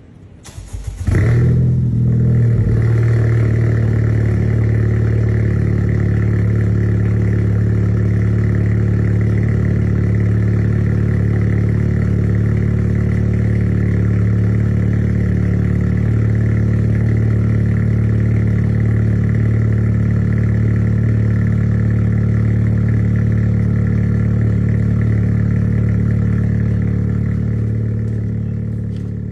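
Honda Civic Type R (FK8) 2.0-litre turbocharged four-cylinder cold-starting: a brief crank, then it catches about a second in with a short flare and settles into a steady high idle, fading near the end.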